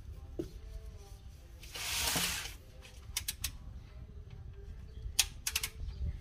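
Socket ratchet clicking in two short runs of a few quick clicks, about three and five seconds in, as it is worked on the oil drain plug. A short rush of noise about two seconds in.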